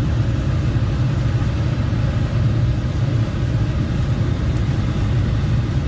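Air compressor running steadily, inflating a van tyre: a continuous low, fluttering hum.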